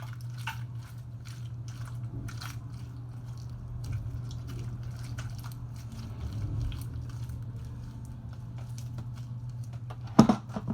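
Homemade slime being kneaded and stretched by hand with activator: scattered sticky clicks and squelches over a steady low hum. A sharp knock stands out near the end.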